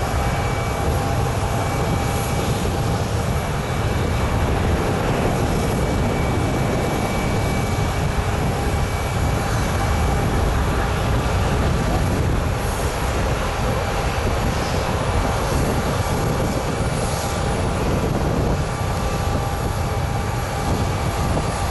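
Jet engines of a Ryanair Boeing 737 MAX 8-200 (CFM LEAP-1B turbofans) running at low power as it taxis: a steady, unbroken rumble with a faint thin whine on top.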